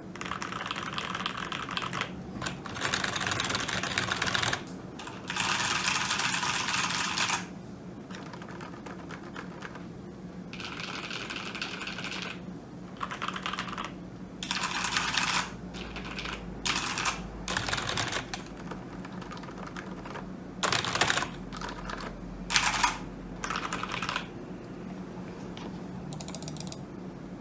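Typing on a computer keyboard: runs of rapid keystrokes broken by short pauses, with a few single, heavier key strikes in the second half.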